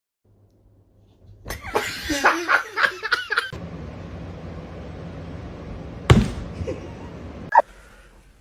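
A brief burst of laughter for about two seconds, then a steady hiss with a single thump about six seconds in.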